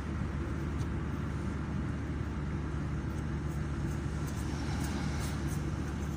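Steady road and engine noise heard from inside a moving car, a low even hum with tyre rush.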